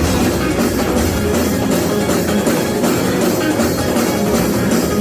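Gospel praise-break music played loudly by a church band: a fast, driving drum kit with other instruments over it.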